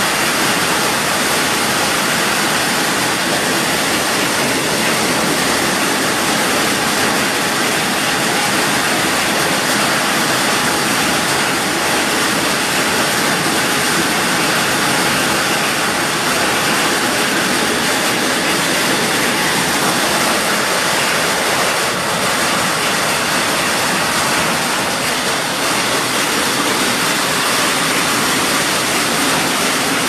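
Hailstorm: heavy rain and hail pouring down in strong wind, a loud, steady rushing noise.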